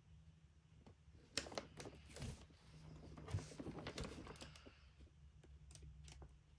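Clear plastic dividers of an expanding file folder clicking and rustling as a hand works through them to file sheets of sandpaper, with a few sharper clicks about a second and a half in and again around three to four seconds in.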